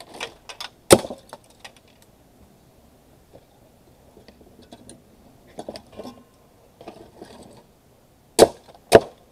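Hammer blows on the motor end of a tower fan's blower wheel, knocking the motor off because it won't come off the way it is meant to. One sharp blow about a second in, lighter taps and clinks in the middle, then two hard blows near the end.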